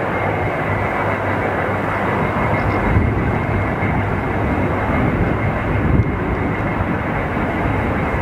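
Twin jet engines of a Sukhoi Su-35 fighter in flight: a loud, steady wash of engine noise with small swells about three and six seconds in.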